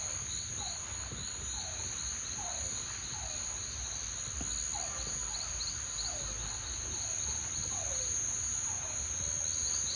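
Insects, crickets or similar, trilling steadily in a high continuous drone with a fast pulsing just beneath it. Lower down, short falling chirps from another animal repeat about twice a second.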